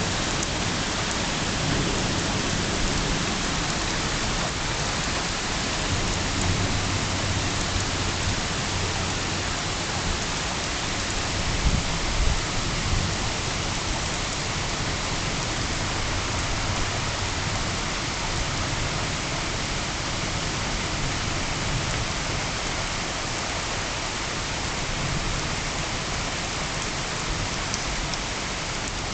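Steady heavy rain falling during a thunderstorm, with low rumbles of thunder swelling under it several times, the loudest about twelve seconds in.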